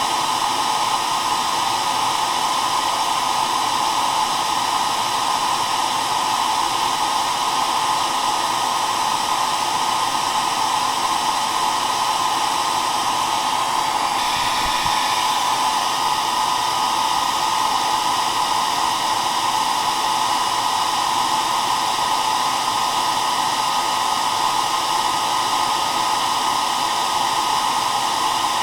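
Hair dryer running steadily: a continuous rush of blown air with a steady motor whine, unchanging in level.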